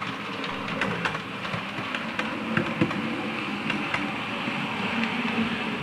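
Model diesel railcar running along the layout's track toward the station: a steady motor-and-wheel running noise with scattered light clicks as the wheels cross rail joints.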